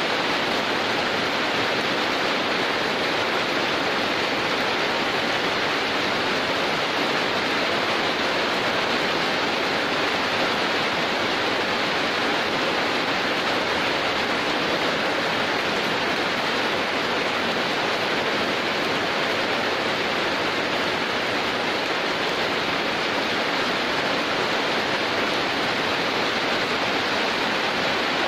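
Heavy rain pouring steadily: a dense, even hiss with no separate drops or thunder standing out.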